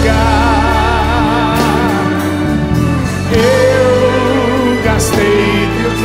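Live band playing a Christian worship song, with a singing voice and a held, wavering vibrato line in the first two seconds.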